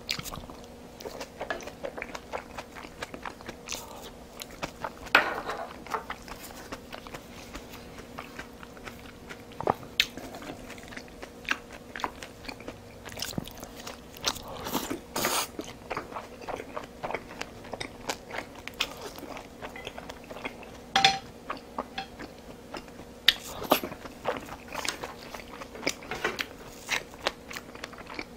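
Close-miked eating: chewing and biting of Korean home-style food, wet mouth sounds with many small sharp clicks and a few louder ones scattered through.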